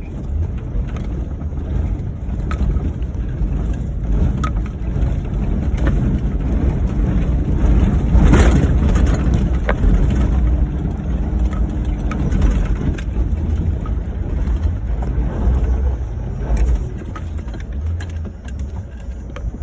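Ford Crown Victoria driving off-road on rough dirt: a continuous heavy low rumble of engine and running gear, with scattered small ticks. A brief loud burst of noise comes about eight seconds in.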